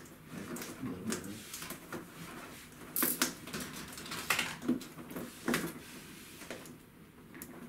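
Cardboard box being opened and handled by hand, with its flaps pulled open: scattered, irregular scrapes, rustles and taps.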